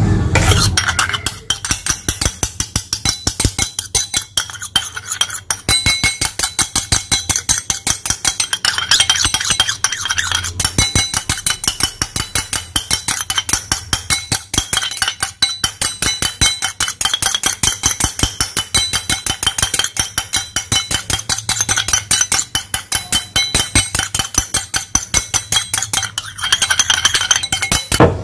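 Metal spoon stirring an olive oil mixture in a small stainless-steel bowl, clinking against the bowl's sides in a fast, even rhythm of about four strikes a second, each with a short metallic ring.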